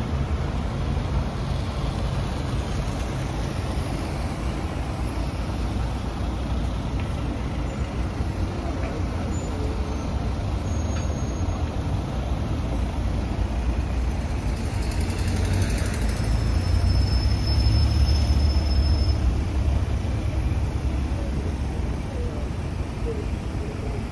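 Road traffic in a slow queue of cars, vans and a double-decker bus: a steady engine and road rumble, heaviest in the low end, swelling louder for a few seconds past the middle.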